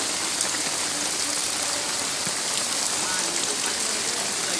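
Rain falling steadily onto a flooded street, drops pattering into the standing floodwater in an even, unbroken hiss.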